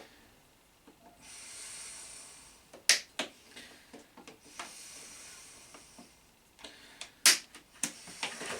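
Side cutters and a small bar clamp being worked free of its fastenings: stretches of rustling, scraping hiss, broken by sharp clicks, the loudest about three seconds in and about seven seconds in.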